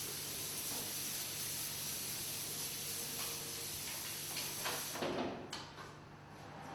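Hand-held glass cutter scoring a sheet of glass: a steady high hiss that stops about five seconds in, followed by a few light knocks.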